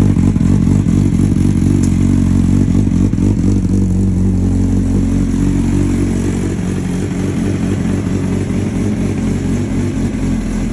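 Kawasaki ZX-9R inline-four motorcycle engine running steadily just after its first start following about eleven months in storage. The note eases off slightly about halfway through.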